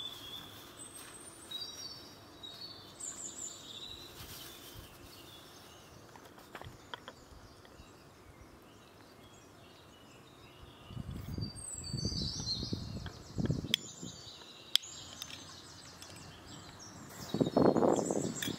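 Small birds chirping and singing on and off. Soft rustling swells rise about two-thirds of the way in and again near the end, and there are a couple of light clicks.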